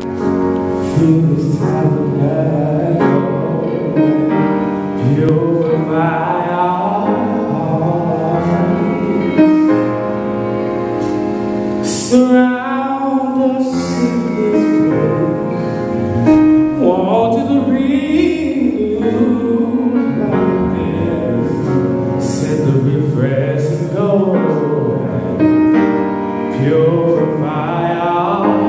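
Live gospel song: a male lead singer on a microphone with a choir singing behind him, over keyboard accompaniment.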